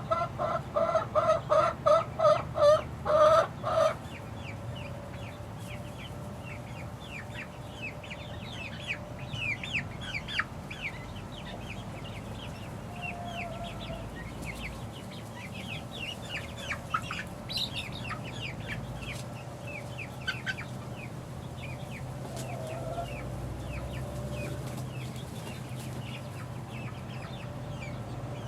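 Young pullets about six weeks old peeping: many short, high, falling peeps. A run of louder calls, about three a second, stops about four seconds in.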